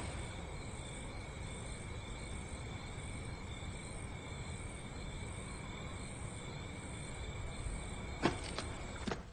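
Crickets chirping steadily in a night-time ambience, with a couple of short knocks near the end.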